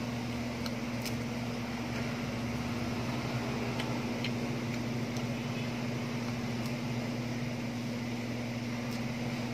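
Steady low electric hum of a running motor or fan, unchanging throughout, with a few faint clicks.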